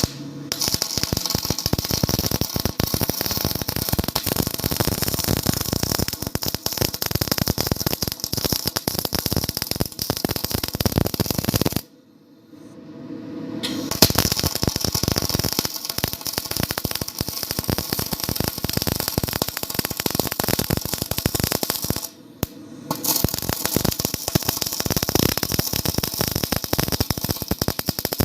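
Electric arc welding crackling steadily. The arc stops about twelve seconds in for roughly two seconds and again for a moment about twenty-two seconds in, each time starting up again.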